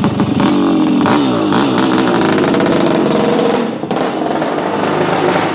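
Big-bore 414cc two-stroke single of a Montesa VR360 motorcycle revving in several rising and falling sweeps as the bike pulls away, dropping off about three and a half seconds in.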